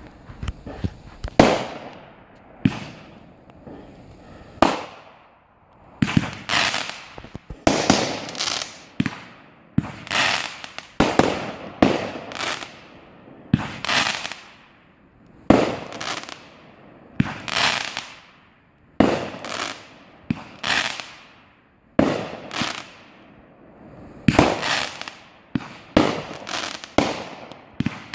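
Campfire crackling with sharp, irregular pops of burning wood, roughly one or two a second, each trailing off in a short hiss.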